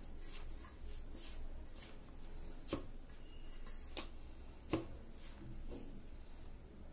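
A hand mixing dry rice flour and chopped dill leaves in a stainless steel bowl: soft, repeated rustling and scraping strokes, with three sharper clicks against the bowl in the middle.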